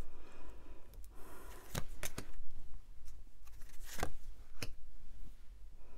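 Tarot cards being handled on a table: a soft rustling with a few sharp clicks and snaps, a pair about two seconds in and another pair about four seconds in.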